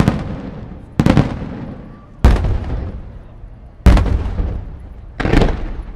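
Aerial firework shells bursting with sharp bangs, about five in quick succession at roughly one-second intervals. Some bangs are doubled or tripled cracks, and each trails off in a long rolling echo.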